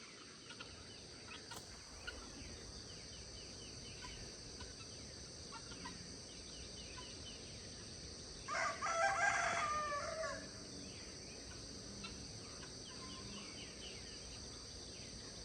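A rooster crowing once, about two seconds long, near the middle, over faint chirping of small birds.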